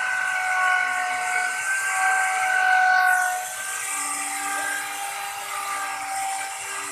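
Crown plunge router running at speed with a steady high whine as its bit cuts a design into a wooden bed panel. About three seconds in the sound drops a little in level and the pitch shifts slightly as the cut changes.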